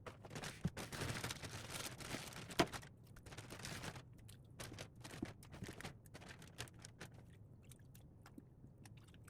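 Light clicks, knocks and scraping of objects being handled, with one sharper knock about two and a half seconds in.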